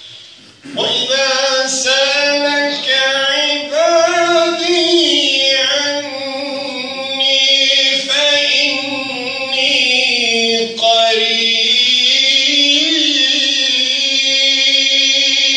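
A man reciting the Qur'an in the melodic, chanted style, one voice drawing out long, ornamented held notes. The recitation begins about a second in after a short pause, with brief breaks for breath twice along the way.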